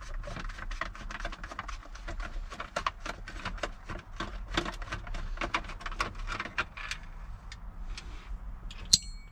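Screwdriver working screws out of a plastic steering-column shroud: an irregular run of small clicks, taps and scrapes of metal on screw heads and plastic trim. One sharper click with a brief high ring comes near the end.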